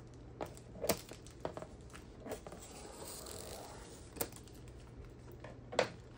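Clear plastic shrink wrap crinkling as it is cut with scissors and pulled off a cardboard box, with a handful of sharp snips and clicks along the way.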